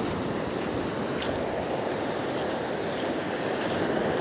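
Sea surf breaking and washing over a pebble beach: a steady rushing wash.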